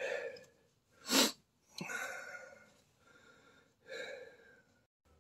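A man's strained breathing: four short, breathy exhales and grunts, the loudest about a second in, from the exertion of forcing a new rear shock absorber onto its mount.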